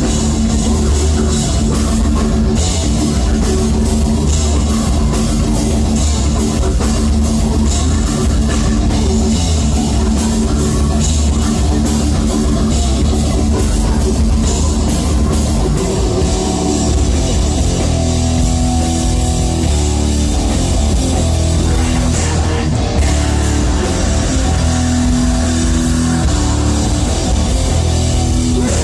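Live heavy metal band playing loud: distorted electric guitars, bass and a drum kit, as a dense, unbroken wall of sound.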